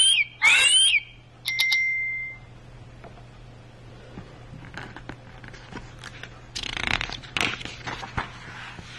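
Sound book's small speaker playing an eagle's call: two loud screeches that glide up and then down. A click and a steady beep that fades follow. Near the end comes the rustle of a stiff book page being turned.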